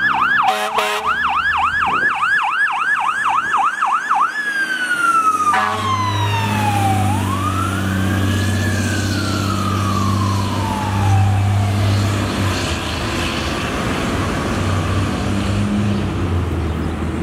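Fire truck siren in a fast yelp, about three sweeps a second, switching after about four seconds to a slow wail that falls, rises once and winds down. A heavy truck engine rumbles steadily underneath as the aerial ladder truck pulls through the intersection.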